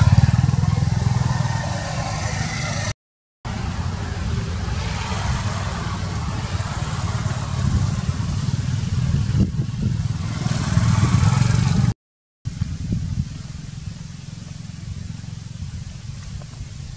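Motorbike traffic on a road: engines swell past near the start and again about two-thirds of the way through, over a steady low rumble. The sound cuts out briefly twice, and it is quieter near the end.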